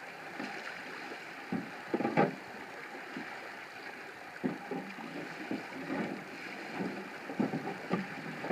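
Irregular knocks and bumps from a canoe's hull and gunwales as a paddler shifts and crawls across it to change seats, over a steady wash of background noise.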